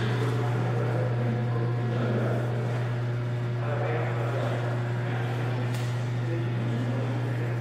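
A steady, unchanging low hum, with faint distant voices murmuring above it.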